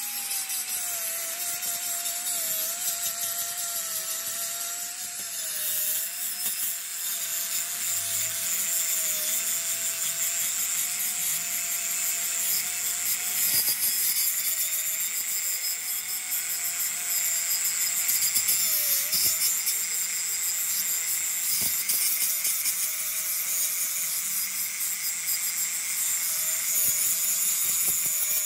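Handheld angle grinder running steadily as its abrasive disc grinds across a large steel truck gear: a constant motor whine over the hiss of the disc biting the metal. The whine dips briefly in pitch once, about two-thirds of the way through.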